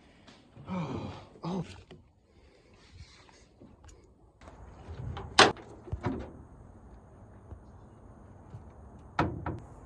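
Several sharp clunks and knocks, the loudest about five and a half seconds in and a pair near the end, after two short pitched squeaks about a second in.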